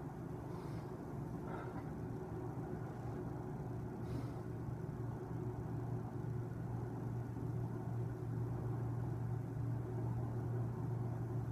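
Corded electric hair clippers running with a steady low hum, growing stronger about four seconds in.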